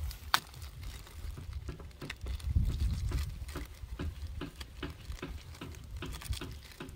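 Thin plastic bag crinkling and rustling as it is handled and pawed at, a run of irregular crackles and clicks with a sharper snap about a third of a second in, over a low rumble.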